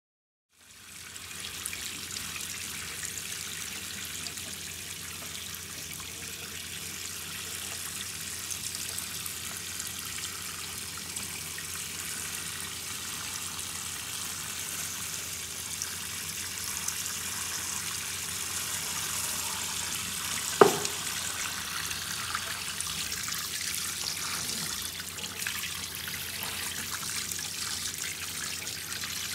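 Kitchen faucet sprayer running, a steady spray of water hissing onto live crawfish in a stainless steel sink as they are rinsed clean of mud. A single sharp knock about two-thirds of the way through.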